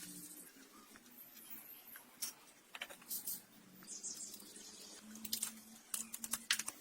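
Scattered light clicks and taps, with a faint low hum underneath that grows a little louder about five seconds in.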